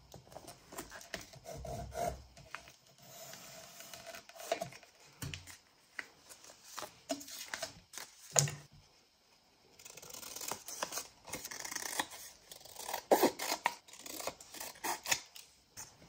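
Pencil scratching as it traces a shape on thin brown packaging paper, then scissors cutting the paper in a quick run of snips in the second half, with paper rustling as it is handled.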